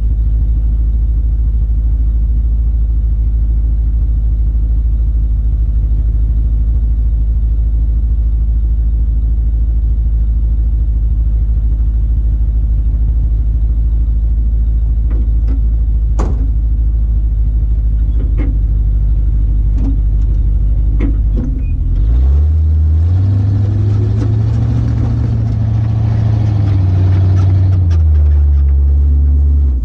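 Tow truck's engine idling with a steady low rumble, then revving up about two-thirds of the way through as the truck drives off, the engine held at higher revs until it cuts off at the end. A few light clicks sound shortly before it pulls away.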